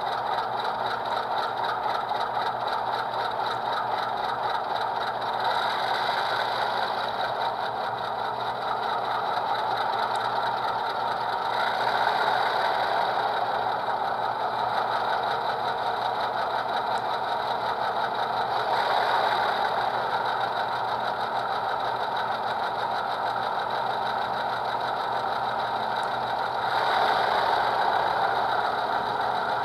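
HO-scale model diesel locomotive's ESU Select sound decoder playing a diesel prime mover running through a small 23mm speaker. The engine sound is steady, growing louder about four times.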